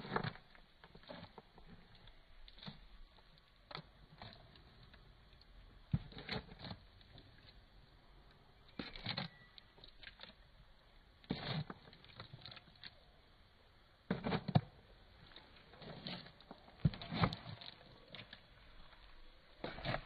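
Emus pecking and scooping mixed grain and pellets from a metal feed trough: irregular bursts of rustling, clattering feed and beak clicks every couple of seconds.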